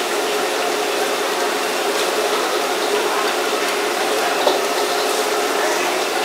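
Whole tilapia deep-frying in a wok of hot oil: steady sizzling and bubbling, with a small pop about four and a half seconds in.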